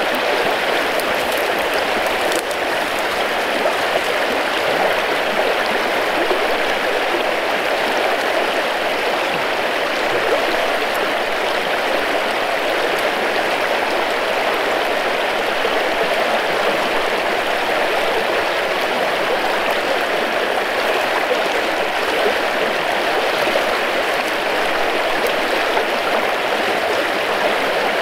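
Small river running high in spring, its water rushing steadily.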